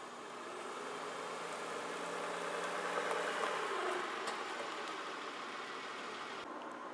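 A car drives past close by. Its engine hum and tyre noise grow louder to a peak about three seconds in, then fade away.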